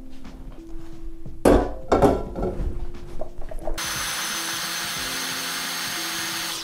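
A wok clatters as it is set down on a gas hob, then a small electric blender starts about four seconds in and runs steadily, grinding toasted spices with a little added water into a smooth paste, before cutting off suddenly.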